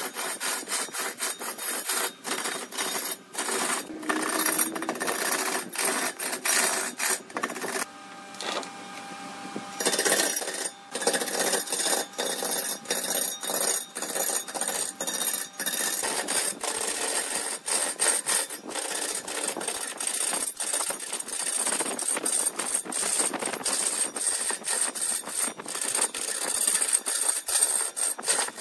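Turning tool cutting into wood spinning on a lathe: a rough, noisy cut broken into many short strokes. About eight seconds in the cutting stops for two seconds, leaving a faint steady hum with a few tones, then starts again.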